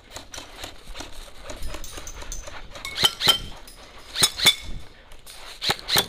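Airsoft rifle firing in pairs of quick shots, three times in the second half, with faint clicking and rattling before the first pair.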